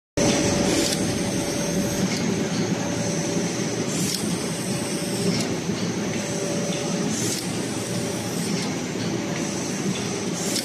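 Automatic rigid box making machine running: a steady mechanical clatter with a faint steady whine, and a short high hiss every few seconds.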